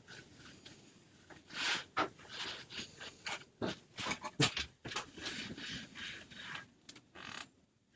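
Irregular scraping, rubbing and rustling from hands handling craft materials, broken by scattered sharp clicks and taps.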